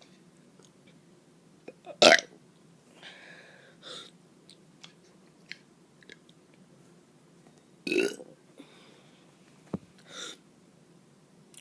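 A child burping: a loud burp about two seconds in and another about six seconds later, with a few fainter short sounds between them.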